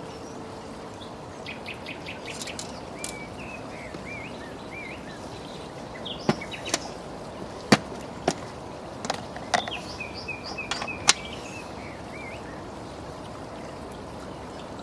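Small birds chirping over a steady outdoor background noise, with a string of sharp clicks from about six to eleven seconds in as a plastic bait tub's snap-on lid is prised open.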